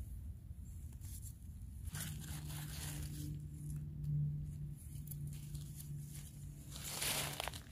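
Leaf litter rustling and crackling as a gloved hand picks mushrooms from the forest floor, with a few short crackles, the loudest near the end. A steady low hum comes in about two seconds in.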